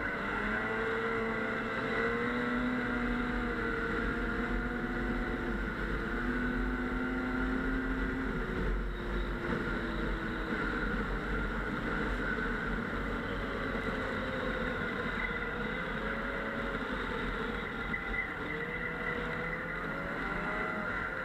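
Snowmobile engine running under way, its pitch rising and falling with the throttle.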